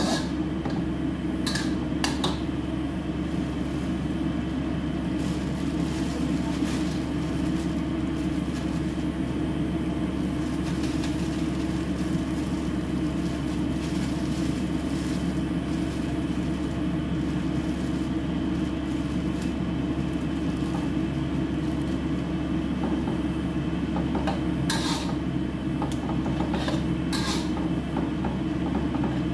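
A steady low hum runs throughout. A metal spatula knocks and scrapes against a wok a couple of times near the start and several times near the end.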